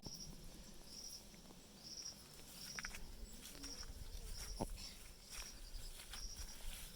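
Insect chirping in the field, a short high chirp repeating a little faster than once a second, with a few faint clicks.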